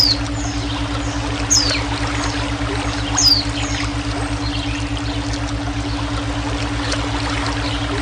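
Steadily running water under a constant low droning brainwave tone. A bird gives three loud, short calls that slide down in pitch in the first few seconds, with fainter chirps scattered around them.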